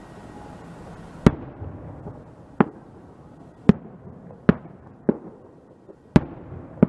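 Aerial firework shells bursting: seven sharp bangs at uneven intervals, each trailing off in a short echo, over a steady low background hiss.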